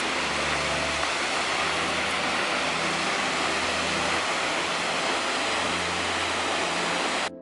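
Seljalandsfoss waterfall rushing: a loud, steady, even roar of falling water that cuts off suddenly near the end.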